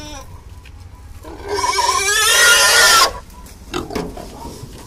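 A pig squealing loudly for about two seconds as it is held and pushed by hand: a restrained pig's distress squeal. A few short knocks follow.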